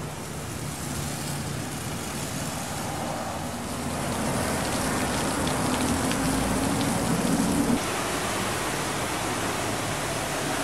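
Pressure washer spraying water: a steady rushing hiss, with a low hum joining in partway through and cutting off suddenly about three-quarters of the way in.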